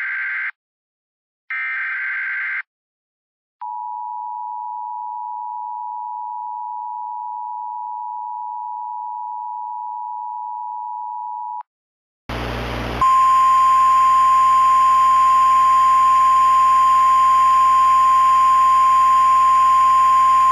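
Emergency Alert System tones: the last two short raspy SAME digital header bursts, then the two-tone EAS attention signal held for about eight seconds. After a short pause, a single loud steady weather-radio alert tone comes in over a hissy background.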